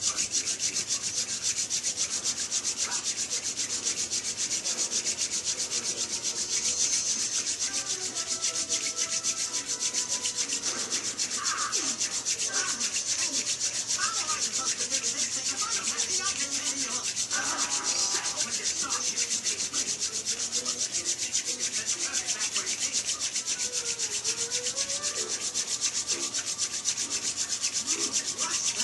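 Hand-drill friction fire: a still-green white yarrow spindle spun back and forth between the palms, grinding into a white pine root hearth with a steady, fast rasping rub. The spindle is being spun to force-dry it, and the hearth is smoking.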